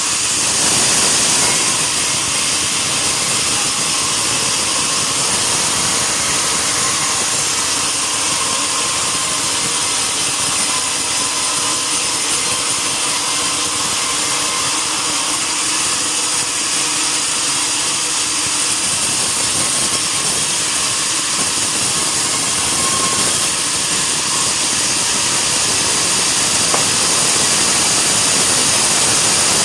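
Sawmill saw running steadily as it cuts through a mahogany log, a loud, even mechanical noise with no break.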